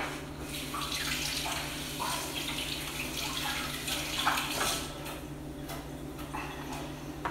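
Kitchen tap running into a sink for about five seconds, then easing off, over a steady low hum.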